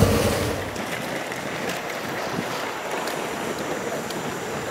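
Steady rush of wind and water alongside a ferry, with wind buffeting the microphone; a louder rush with low rumble fades away about half a second in.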